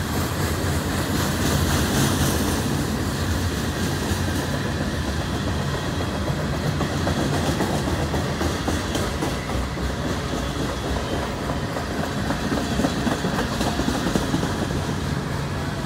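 Mid-train freight cars, covered hoppers and tank cars, rolling steadily past, their steel wheels running on the rails.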